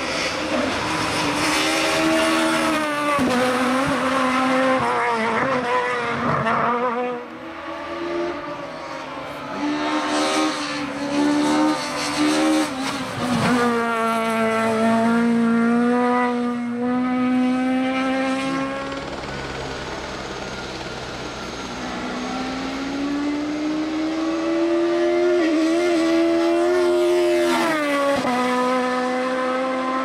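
Peugeot 306 Maxi rally car's naturally aspirated four-cylinder engine at full throttle, its pitch climbing and dropping again and again as it shifts through the gears on several passes.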